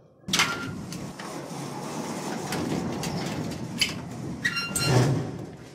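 Heavy metal door sliding and bolting shut: a sudden metallic clank, a grinding slide, then a ringing metal clang about four and a half seconds in.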